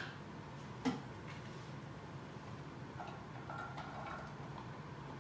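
A single sharp clack of kitchenware about a second in, then soft scraping as diced chicken is tipped from a bowl into a skillet on the stove, over a low steady hum.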